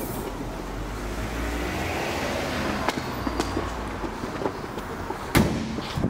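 A low steady rumble, then one sharp slam about five seconds in: the bonnet of a BMW 320 being shut.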